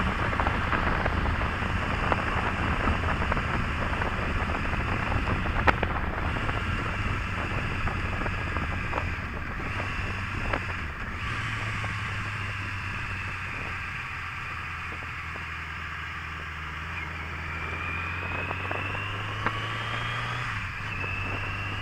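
Motorcycle engine running with a steady low hum while wind rushes over the microphone; the wind noise eases after about ten seconds, leaving the engine more exposed.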